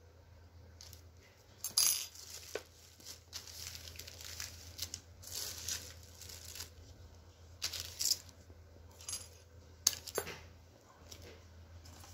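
Clear plastic bag crinkling and rustling in irregular bursts as the reciprocating saw inside it is handled, with a few sharp metallic clicks, among them a steel hex key set down on the ceramic tile floor.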